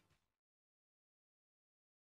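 Silence: the tail of the music fades out within the first half second, then nothing.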